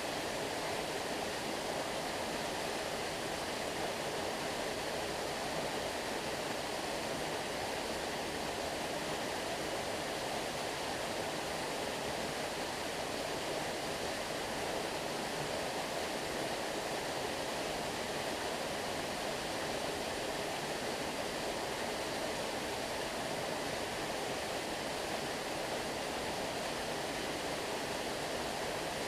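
Waterfall: a steady, unbroken rush of falling water, strongest in the middle range, with no change throughout.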